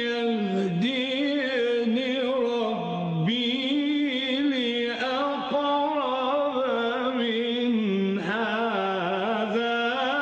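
A male Quran reciter chanting in the melodic mujawwad style, with long, ornamented notes that waver and glide in pitch without a break, dipping low twice.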